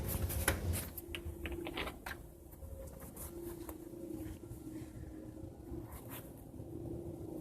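An unidentified, persistent noise: a steady low hum that swells and fades slightly. A few sharp clicks come in the first two seconds.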